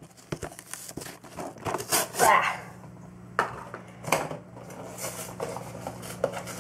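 Cardboard pin collection box being pried and torn open by hand: scattered scrapes, taps and clicks, with a longer scraping tear about two seconds in and a couple of sharp clicks after it.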